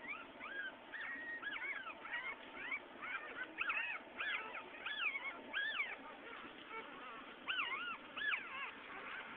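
Newborn puppies whimpering and squeaking: many short, high cries that rise and fall, several a second and often overlapping, pausing briefly about six seconds in before a few more.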